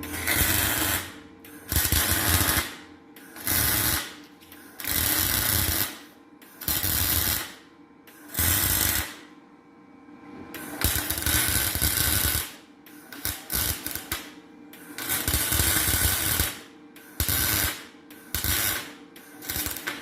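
Welding arc crackling in about a dozen bursts, each a second or so long with short pauses between, as beads are laid around the exhaust valve seats of a Chrysler 4.7 cylinder head to shrink the seats loose for removal.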